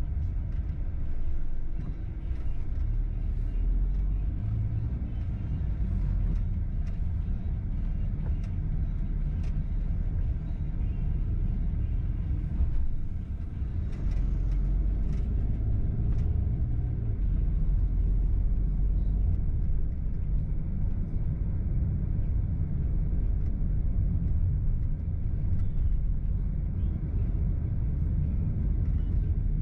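A car driving on the road: a steady low rumble of engine and tyre noise.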